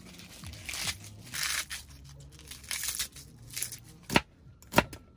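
Plastic food packaging rustling and being torn open, followed by two sharp clicks near the end.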